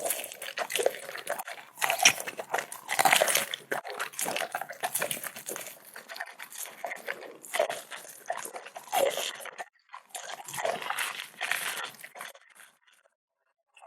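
A dog crunching and chewing its food in close, crackling bites, with short pauses, stopping shortly before the end.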